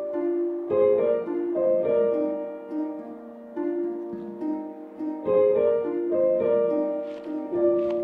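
Instrumental film score: a light melody of plucked notes moving in short phrases.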